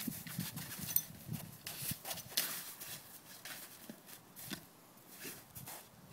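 Dog playing with a hard plastic Nalgene bottle: irregular hollow knocks and clatters as the bottle is batted and mouthed on snowy ground. They are busiest in the first half and thin out after about four seconds.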